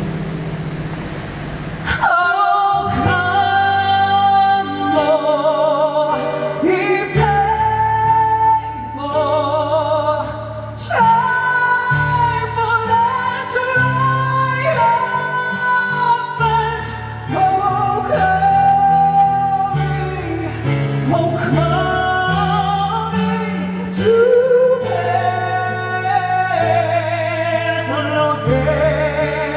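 Female lead vocalist singing long, held notes with strong vibrato over a full rock band with drums and bass. The band swells in with a crash about two seconds in, then cymbal and drum hits punctuate the song.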